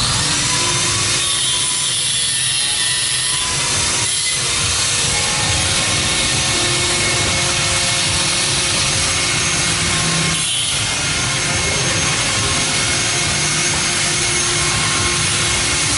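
Handheld electric angle grinder running against metal: a loud, steady grinding hiss that eases off briefly twice, about four seconds in and again around ten and a half seconds in.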